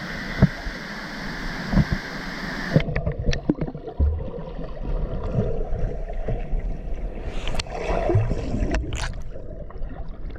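Rushing waterfall water; about three seconds in it turns abruptly muffled and low, with bubbling and scattered knocks, as the microphone goes under water.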